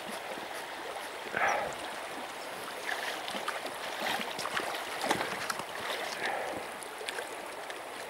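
Shallow river riffle running steadily over stones, with scattered small clicks and splashes on top.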